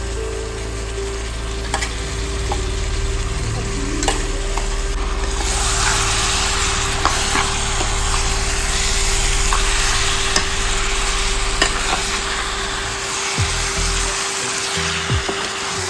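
Chicken frying and sizzling in a pan as it is stirred, the spoon clicking against the pan now and then; the sizzle gets much louder about five seconds in. A steady low hum runs underneath and cuts out near the end.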